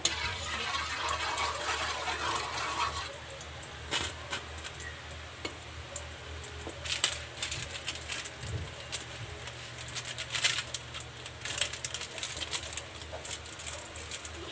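Cooking oil in an aluminium wok: a metal ladle spreads it with a hiss for about three seconds, then the oil heats on the stove, crackling and popping now and then.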